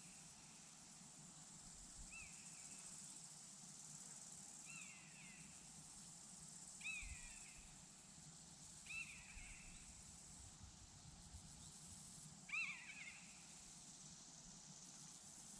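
Faint, steady high chirring of crickets, with five short falling bird calls a few seconds apart; the last call, near the end, is the loudest.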